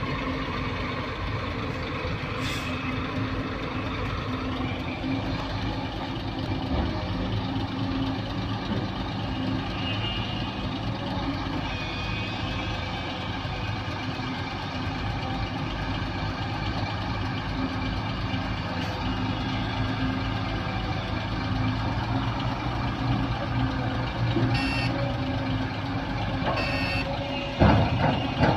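Shacman diesel dump truck reversing with its back-up beeper sounding, over the steady running of a hydraulic excavator's diesel engine. A brief loud sound stands out near the end.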